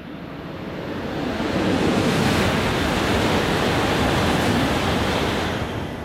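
Tohoku Shinkansen Hayate train running through the station at high speed without stopping: a rushing roar of air and wheels that swells over about two seconds, holds steady, then starts to fade near the end.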